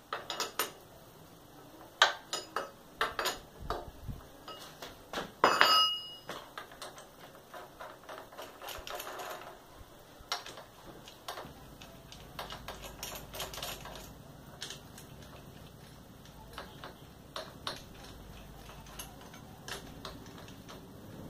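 Hand tools on the cylinder head of a Sundown MAX 125 engine: a socket wrench and extension clinking and clicking on metal as the already-loosened 12 mm head bolts are turned out one by one. The sharpest clinks come about two seconds in and again near six seconds, followed by runs of lighter clicks.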